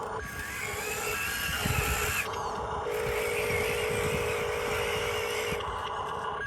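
Small electric motors of radio-controlled construction models running with a steady whine that breaks off briefly twice, a higher whine rising and falling over it.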